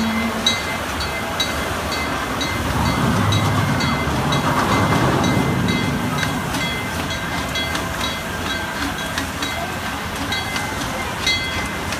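Small live-steam locomotive passing at low speed with its open passenger cars, the running noise loudest as the engine goes by about three to six seconds in, with a series of light regular ticks.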